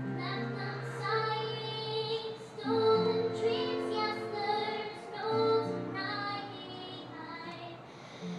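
A young girl singing a slow melody live into a stage microphone, over instrumental accompaniment whose low held notes change about every two and a half seconds.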